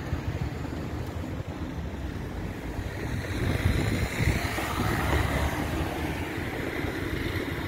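Street traffic noise with wind buffeting the microphone; a car passing close by swells louder about halfway through, then fades.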